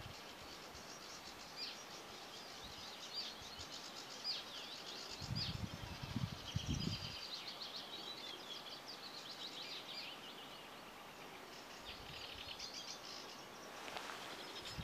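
Sedge warbler singing in a reedbed: phrases of rapid chattering trills and short rising notes, with gaps of a second or two between phrases. A few low rumbles sound about five to seven seconds in.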